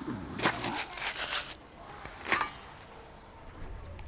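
Rustling and scraping handling noises, likely from the angler working the catch or the magnet: a cluster of short scratchy sounds about half a second in and another brief one a little after two seconds.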